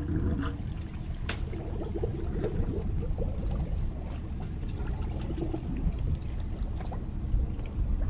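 Water sloshing and gurgling against the edge of a concrete boat ramp as a trailer backs a cabin cruiser into the water, over a steady low rumble.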